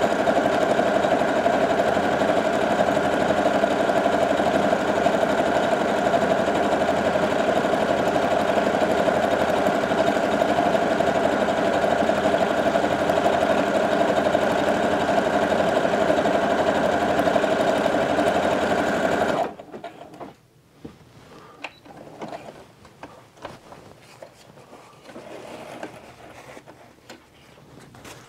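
Brother HC1850 computerized sewing machine stitching a decorative pattern through fabric at a steady speed. It stops abruptly about nineteen seconds in, and after that there are only faint scattered rustles and clicks.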